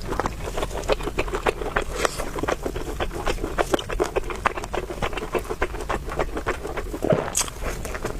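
Close-miked mouth sounds of someone eating beef noodles: steady chewing with many quick, wet clicks, several a second, and a brief lower sound a little after seven seconds.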